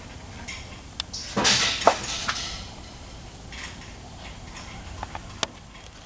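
Sharp metallic clicks and clinks of hand tools and engine parts being handled, with a louder scraping rustle about a second and a half in that lasts under a second.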